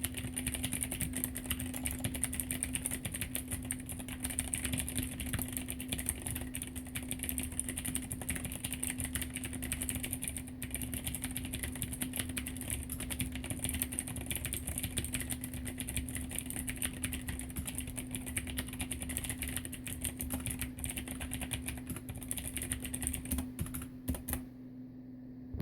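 Fast, continuous typing on a mechanical keyboard with clicky Cherry MX Blue switches, each keystroke giving a sharp click, in a case fitted with sound-absorbing foam. The typing stops near the end after a few last keystrokes.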